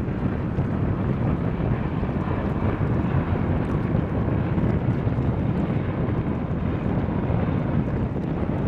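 Boeing 747-400's four jet engines at takeoff thrust, a steady low rumble as the airliner climbs out, mixed with wind buffeting the microphone.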